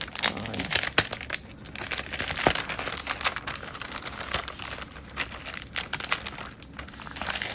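Plastic packaging crinkling and rustling as it is handled and opened, with many sharp crackles.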